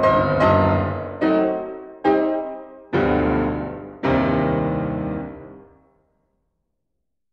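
Background piano music: five slow chords, each struck and left to ring and decay, the last fading away about six seconds in.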